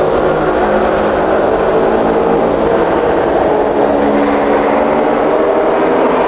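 Loud, steady rumbling sound effect with several held tones that waver and drift slowly in pitch, without any sharp hits.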